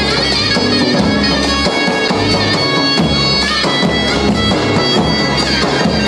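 Loud folk dance music: a shrill, reedy wind melody with ornamented, wavering notes over a steady drum beat.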